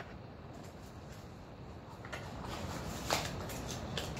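A stack of picture cards being handled: faint rustling with a few light taps and clicks, starting about two seconds in.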